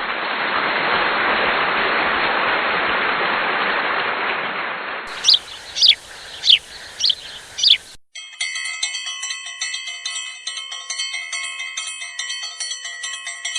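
Outro sound effects: a steady rushing noise that stops suddenly about five seconds in, then five short high chirps, each falling in pitch, then a bright chiming tune.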